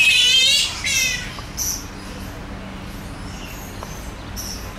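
Spectacled flying foxes calling in a roosting colony: two loud, wavering screeches in the first second or so, then scattered shorter, fainter squeaks.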